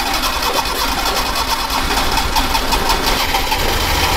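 Small Suzuki petrol engine with breaker-point ignition running at idle with an uneven beat, still misfiring slightly. The misfire comes from water shorting the ignition coil's resistor and sitting in the plug-wire sockets after a wash.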